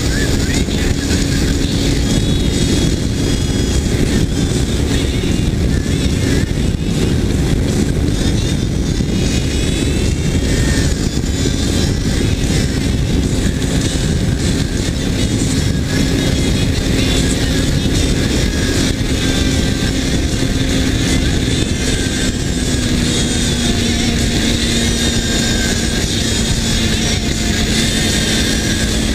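Kawasaki Ninja 300 parallel-twin motorcycle cruising at a steady speed, its engine note held almost constant and dipping slightly about two-thirds of the way through, under heavy wind rush on the microphone.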